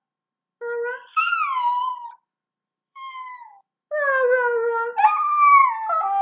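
A dog howling: four drawn-out calls with gaps between them, each gliding down in pitch. The last and longest begins about four seconds in.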